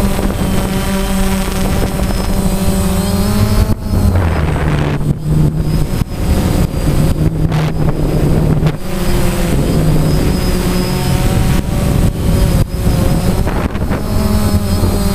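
DJI Phantom quadcopter's motors and propellers humming steadily, heard from the camera mounted on the drone itself. The pitch drops about four seconds in and climbs back near nine seconds as the throttle changes, with some wind noise on the microphone.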